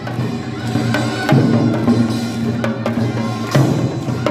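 Korean pungmul percussion playing: buk barrel drums struck with sticks in an irregular rhythm of sharp strokes, over steady low ringing tones.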